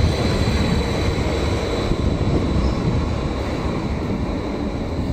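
Electric multiple-unit passenger train rolling slowly past along the platform as it pulls in: a steady low rumble of wheels on rails with a faint, steady high whine above it, easing off a little toward the end.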